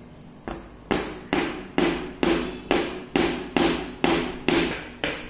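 Claw hammer driving a nail into a small wooden block: about a dozen steady, evenly spaced blows, a little over two a second, starting about half a second in.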